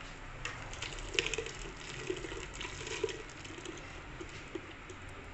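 Blended plum juice being poured from a blender jar into a stainless-steel mesh strainer, the liquid splashing and trickling through, with a few light clicks in the first second or so.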